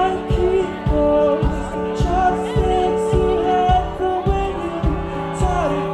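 Live indie rock band playing with a singer: sustained chords and a sung melody over a steady kick-drum beat of about two hits a second.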